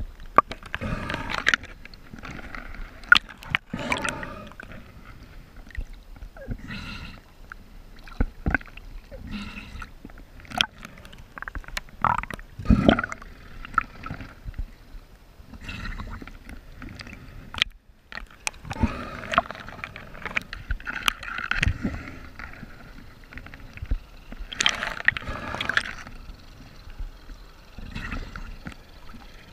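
Water sloshing and splashing around a camera held at the water's surface, with irregular gurgling swells and scattered knocks.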